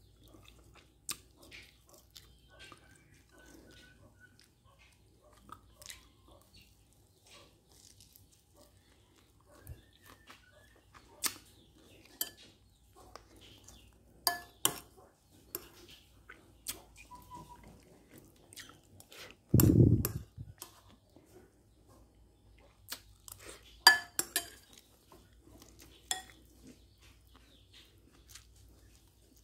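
Metal spoon clicking and scraping against a ceramic rice bowl in scattered strokes, with chewing between them. A dull thump about two-thirds of the way through is the loudest sound.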